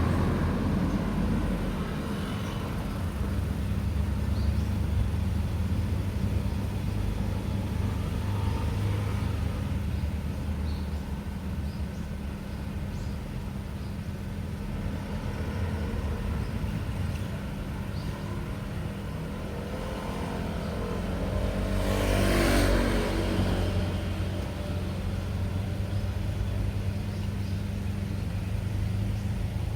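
Road traffic at an intersection: vehicle engines idling or moving slowly with a steady low hum, and one vehicle passing close by about three-quarters of the way through, rising and falling as it goes.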